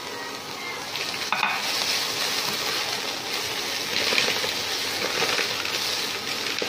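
Chopped garlic, fingerroot and chillies sizzling in hot oil in a nonstick wok while a spatula stirs them. The sizzle grows louder about a second in as the stirring starts, with a light spatula knock on the pan just after. This is the aromatics frying until the fingerroot is fragrant and the garlic turns golden.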